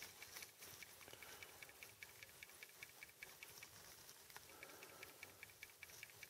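Near silence, with faint, irregular light ticking over a low hiss.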